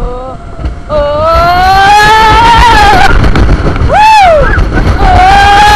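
Riders on a roller coaster screaming over the rumble of the train: one long high scream starting about a second in, a short rise-and-fall cry around four seconds, and another held scream near the end.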